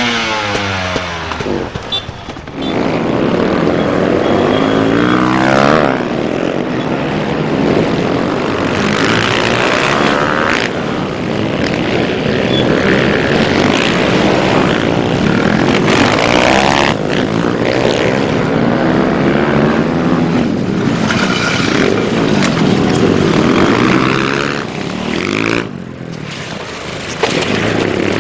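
Small dirt bike engines revving hard as bikes race past, the pitch climbing and dropping again and again with each throttle blip and gear change.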